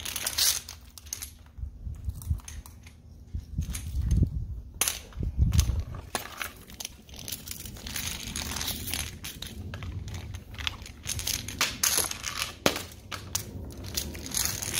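New stiff plastic high-pressure washer hose being uncoiled and stretched out by hand, crackling, rustling and scraping on concrete with irregular clicks and knocks, and a couple of dull thumps midway.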